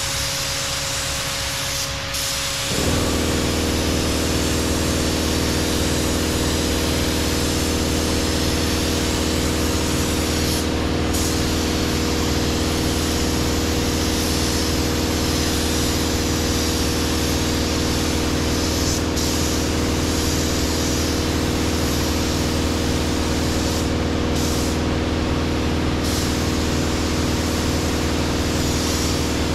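Compressed-air spray gun hissing as it sprays paint, with a few short breaks. About three seconds in, a machine starts up with a steady hum and keeps running under the hiss.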